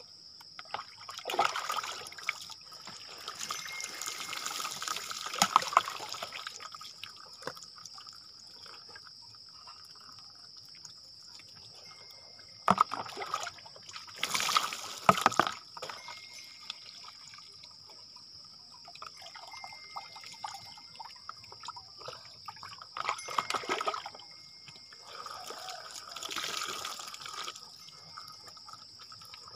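Water poured from a plastic bag over a person's head and body, splashing down in several separate pours, the loudest about fourteen seconds in, with trickling and dripping between pours. A steady high hiss runs underneath.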